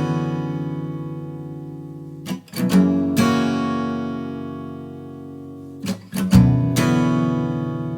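Music: an acoustic guitar strumming chords, each group of strums left to ring out and fade slowly before the next, which comes about every three and a half seconds.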